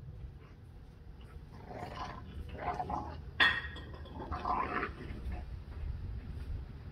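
A borzoi and a Staffordshire bull terrier wrestling, with dog vocal sounds in several short bursts. The loudest is one sudden, sharp sound about three and a half seconds in.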